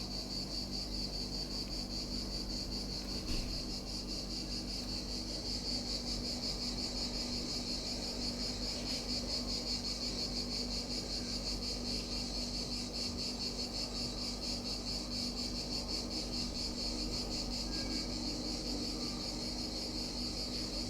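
Insects chirping steadily: a continuous, rapidly pulsing high-pitched trill.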